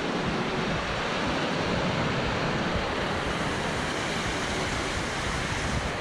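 Small waterfalls and cascades on a spring-fed mountain creek: a steady rush of falling, churning water.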